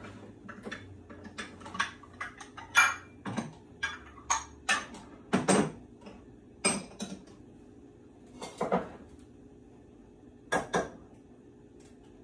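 Dishes clinking and knocking as they are taken down from a kitchen cupboard shelf and set on the counter. A quick run of sharp clinks comes first, then two short clusters later on.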